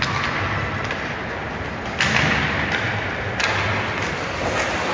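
Two sharp knocks from ice hockey play echo through the rink, one about two seconds in and another a second and a half later, over steady arena noise.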